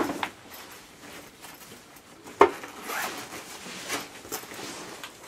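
A fabric backpack being handled and opened for a search: rustling and zipper noises, with a sharp click about two and a half seconds in.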